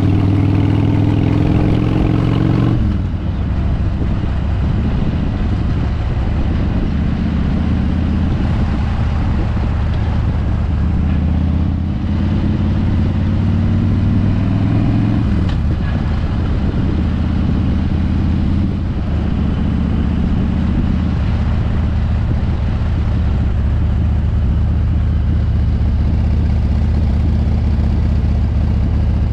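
Harley-Davidson V-twin motorcycle engine under way, with wind rushing past. The revs climb and then fall sharply about three seconds in, as on a gear change. They climb again later and drop back with another change midway through.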